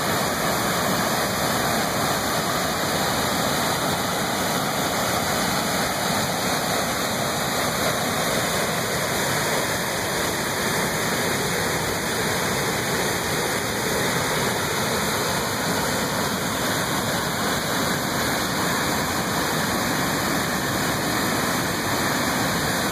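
River cascade, with white water rushing steadily down a series of rock ledges.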